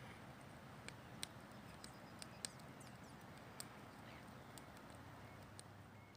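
Near silence: a faint steady background hiss with a handful of small, sharp clicks and ticks scattered through the first few seconds.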